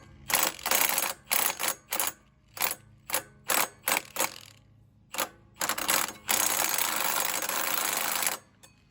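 Half-inch impact wrench hammering on the flywheel nut of a Rato 209 cc Honda-clone engine, in a string of short bursts and then one longer run of about two seconds, used in place of a recoil starter to crank the engine with fuel on and choke set. The engine does not catch.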